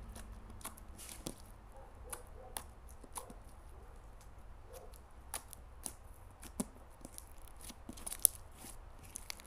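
Jelly cube slime being worked by hand, giving irregular sticky clicks and small pops, with one sharper pop about eight seconds in.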